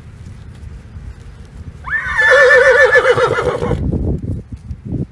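A horse whinnying once: a neigh that rises sharply at the start and then quavers for nearly two seconds. A few low thuds follow near the end.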